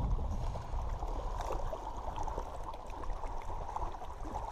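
Wind buffeting the microphone in a steady low rumble, with choppy water lapping against a rocky shore.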